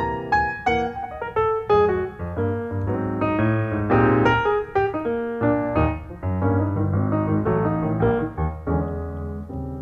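Background piano music: a quick run of notes over a low bass line, slowing and growing softer near the end.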